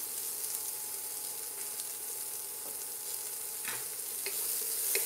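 Diced raw poblano pepper, onion and garlic sizzling steadily in a little oil in a frying pan, with a wooden spoon stirring and scraping the pan a few times in the second half.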